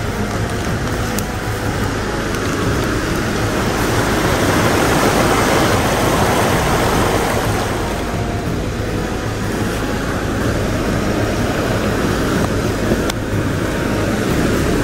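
River water rushing, a steady loud rush that swells a little in the middle.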